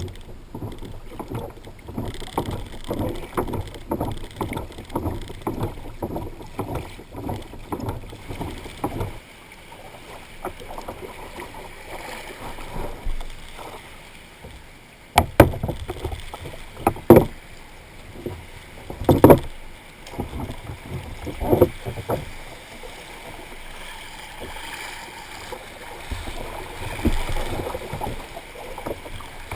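Water slapping and splashing against a plastic kayak hull in shallow, choppy water. Several loud knocks on the hull come in the middle, followed by waves washing around it.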